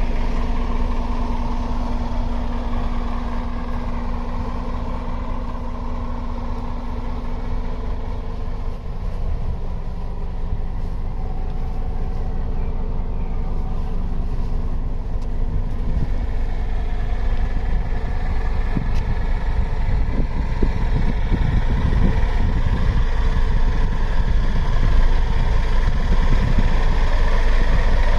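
Scania R-450's 13-litre straight-six diesel idling steadily, a low rumble that grows louder over the last ten seconds or so.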